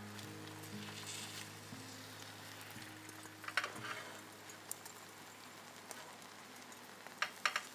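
Oil sizzling and crackling as food fries, under soft background music with held notes; a few sharp clinks come about three and a half seconds in and again near the end.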